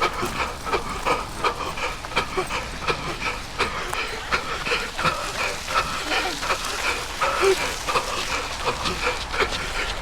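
A runner's heavy, wheezing breathing in quick repeated gasps while running, with footfalls mixed in.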